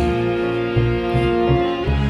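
Slow instrumental music of piano and bass: low bass notes moving under held piano tones.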